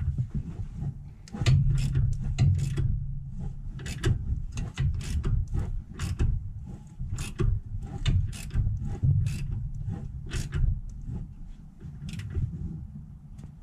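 Ratchet wrench on the crankshaft pulley bolt clicking in irregular runs as a 2011 Honda Pilot's V6 is turned over by hand, clockwise, through a full revolution. This is a check of the freshly set timing-belt marks and that no valve strikes a piston. A low rumble runs under the clicks.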